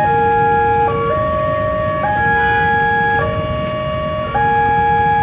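Electronic railway level-crossing warning alarm sounding a repeating melody of held tones that change pitch about once a second, with a steady low rumble underneath.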